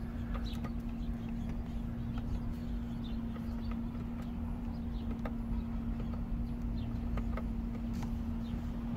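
Cabin sound of a GM full-size hybrid SUV rolling slowly with its V8 running at about 1000 rpm: a steady hum over a low rumble, with scattered light clicks and rattles.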